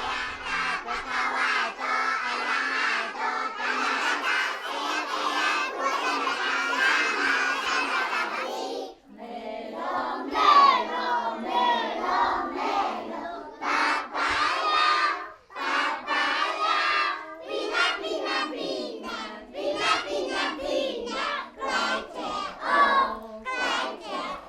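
A large group of small preschool children singing a song together in loud, shouted unison. The singing runs on without a break for about nine seconds, then continues in short phrases with brief pauses between them.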